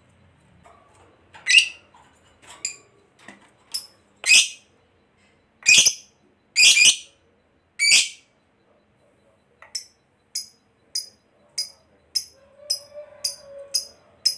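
Fischer's lovebird calling: sharp, shrill single calls about a second apart. From about ten seconds in they turn into a quickening run of short, clipped chirps.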